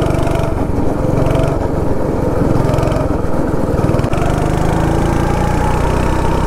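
Go-kart's small petrol engine running under throttle, heard from the driver's seat. Its pitch climbs slowly as the kart speeds up along the straight.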